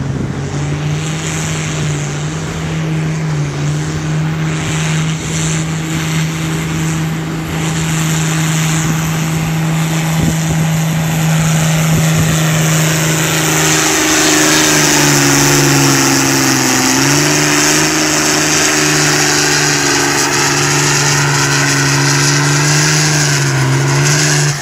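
Farmall 706 tractor with a swapped-in DT360 turbo diesel pulling a weight-transfer sled under full load. The engine runs hard and steady, its pitch sags about two-thirds of the way through and then recovers, and it grows louder as the tractor comes closer. A high turbocharger whistle rises over it in the second half.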